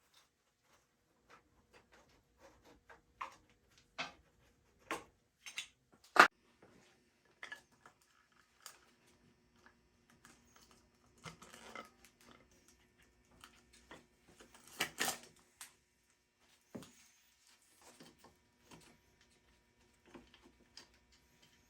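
Irregular clicks, taps and knocks of hand tools and metal parts being handled during motorcycle disassembly, one sharp knock about six seconds in and a busier clatter around the middle.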